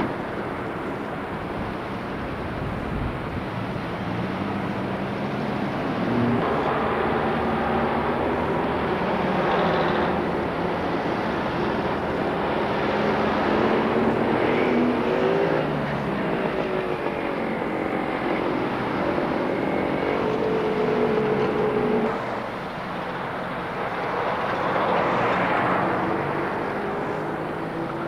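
Street traffic at an intersection: cars and a truck driving past, their engine notes rising and falling over a steady rush of road noise.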